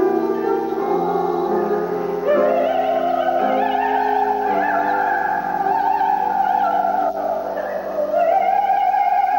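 Operatic soprano singing a zarzuela romanza with instrumental accompaniment. She holds long high notes with vibrato: one rises in about two seconds in and is sustained for several seconds, and another begins near the end.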